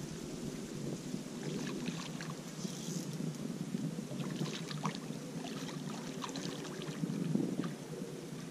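Wind buffeting the microphone as a steady low rumble, with scattered faint clicks.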